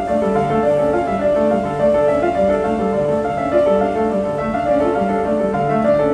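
A grand piano being played live, a steady flowing run of notes with no pauses.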